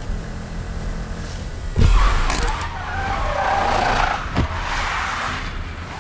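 Car engine running hard with a heavy thud about two seconds in, then tyres squealing as the car skids, with another sharp knock in the middle of the squeal.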